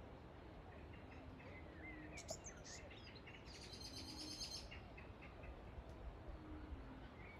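Fairy-wrens calling in a tree: scattered short high chirps, then a fast, very high trill lasting about a second near the middle.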